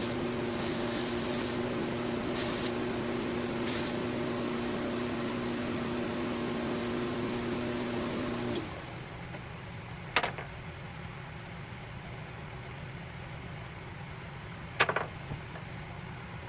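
Bench grinder running with a steady hum while the steel of a draw knife is pressed to the wheel in short hissing bursts during the first few seconds. The motor sound cuts off abruptly about eight and a half seconds in, and two sharp clicks follow later.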